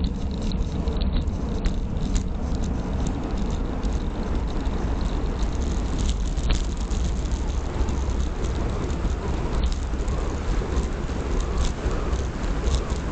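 Wind rushing over the microphone of a camera on a Giant Fastroad Advance 1 road bike descending fast downhill: a steady heavy rumble, with tyre noise on the asphalt and scattered light clicks and rattles.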